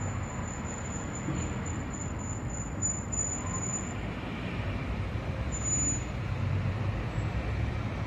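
Steady low rumble of distant road traffic, with a thin high whine for about the first half and again briefly around six seconds in.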